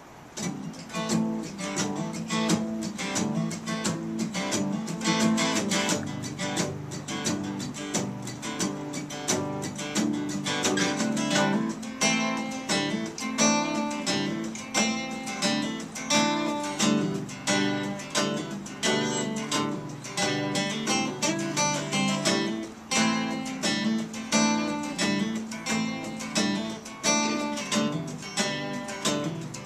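Acoustic guitar playing the instrumental intro of a song, with rhythmic strummed chords that start abruptly just after the opening.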